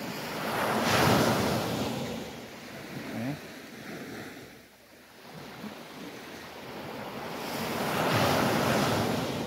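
Small sea waves breaking and washing up the beach in two swells, one about a second in and another near the end, with a lull in between.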